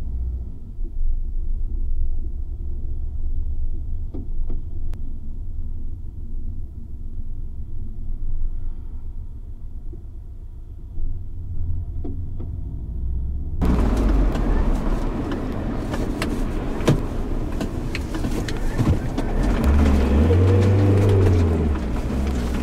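A car driving: the low, steady engine and road rumble of a Citroën C4 Picasso's 1.6 HDi turbodiesel, heard inside its cabin while running with its engine oil drained. About 13 seconds in, the sound switches suddenly to a louder, fuller road and engine noise from the car following behind.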